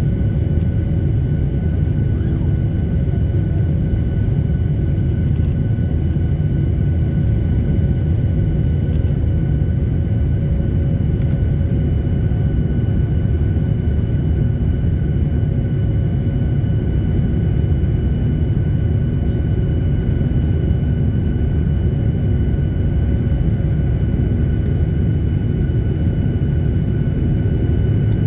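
Cabin noise of a Boeing 737-800 climbing after takeoff, heard inside the cabin beside the wing: a steady low roar from its CFM56 turbofan engines at climb power, with a few faint steady high tones above it.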